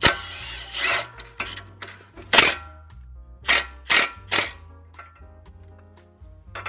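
Several sharp metallic knocks at irregular intervals as tools work on a car's front sway bar link hardware, the loudest at the very start and about two and a half seconds in. Background music with a low bass line plays underneath.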